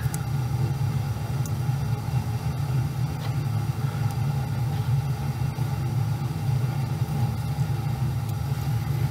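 Steady low hum with a few faint, light clicks of small plastic locomotive parts being handled.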